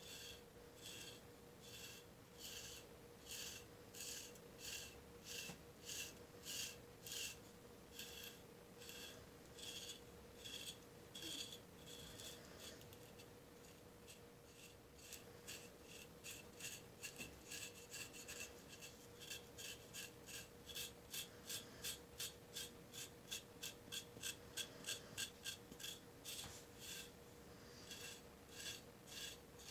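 The 90-degree spine of an LT Wright Kamrat knife scraping dry psoriasis scales off the skin of a shin in short, repeated strokes. The strokes come about two a second, soften for a few seconds near the middle, then pick up to about three a second.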